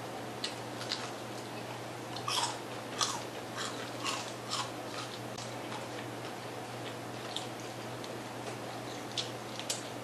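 Close-up crunching and chewing on a crispy fried chicken wing, with a run of crisp bites in the first half and scattered ones later.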